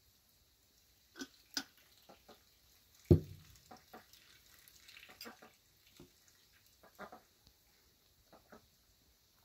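Glass bottle and drinking glasses handled on a cloth-covered table: scattered light taps and clinks, with one heavy thump about three seconds in as the bottle is set down.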